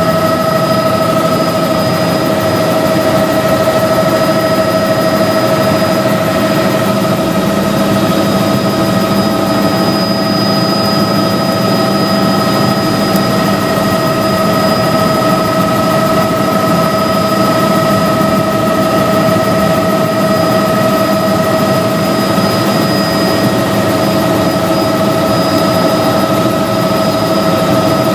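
Turbine helicopter in flight heard from inside the cabin: a steady engine whine with a few high tones over dense rotor and engine noise, unchanging throughout.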